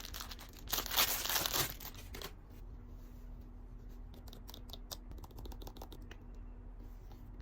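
Skincare product packaging being torn open with crinkling for about a second and a half, followed by a run of light clicks and taps.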